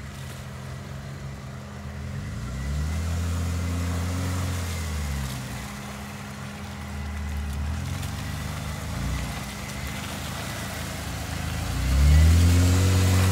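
An off-road 4x4 vehicle's engine revving up under throttle: it rises in pitch about two and a half seconds in, holds, then falls back. Near the end it rises again more sharply, and this is the loudest part.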